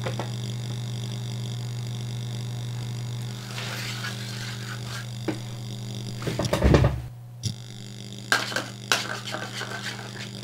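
Cables and connectors being handled and fitted, with rustling, clicks and a heavy thump about six and a half seconds in, then rubbing and scraping, over a steady low drone.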